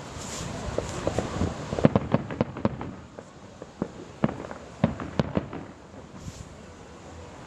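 Fireworks going off: a rapid run of sharp cracks and bangs, thickest about two seconds in, thinning to scattered pops after about five seconds.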